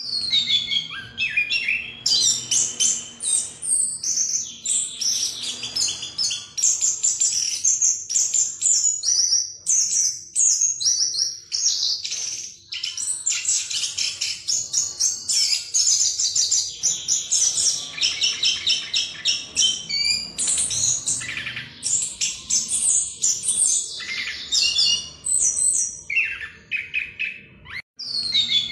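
Chestnut-capped thrush (anis kembang) singing its continuous rolling 'ngerol' song: a fast, unbroken stream of high warbled and twittering notes run together, with only a couple of brief breaks.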